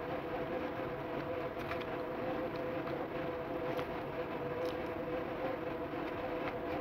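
Steady machine-like hum with two held tones through it, and a few faint clicks.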